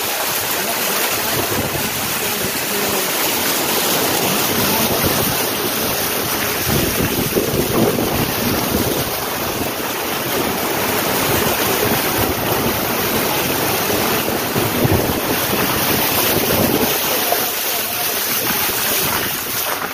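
A car driving through floodwater on a street, its tyres throwing up a steady rushing splash of water along the side, with wind buffeting the microphone.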